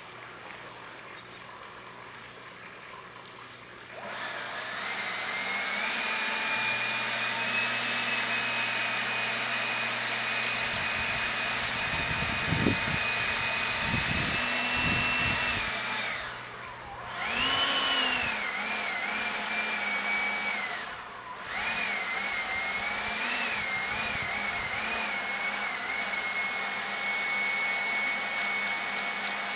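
Whirligig's wooden propeller spinning in the wind, a steady whirring whine that starts about four seconds in. Its pitch wavers with the wind and twice drops away briefly before the blades speed up again.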